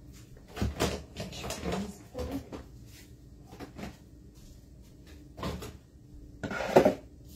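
Kitchen cupboard doors and their contents knocking and clicking as someone rummages for things: a run of separate knocks, the loudest one about a second before the end.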